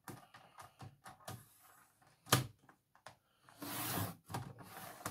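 A sheet of card and a clear plastic ruler being handled on a cutting mat: scattered light taps and clicks, a sharp knock about two seconds in, and a rustle of card sliding across the mat near four seconds in.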